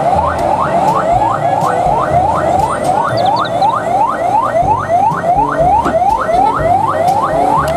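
Vehicle siren sounding a fast, repeating rising whoop, about three a second, over the low rumble of truck engines in a military convoy.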